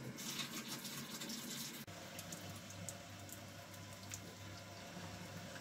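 Sparge water pumped through a hose, splashing onto a spoon over the grain bed in a mash tun, with a steady low hum from the brewing pump underneath. The sound changes suddenly about two seconds in, where the hum becomes plainer.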